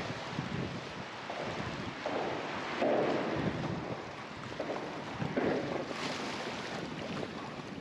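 Wind buffeting the microphone in gusts over a steady rush of wind and choppy sea. The two strongest gusts come about three and five and a half seconds in.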